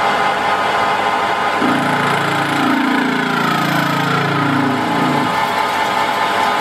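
Metal lathe running steadily while the tool cuts into the face of a spinning flange, peeling off curly chips. A buzzing tone falls in pitch from about a second and a half in until just past five seconds.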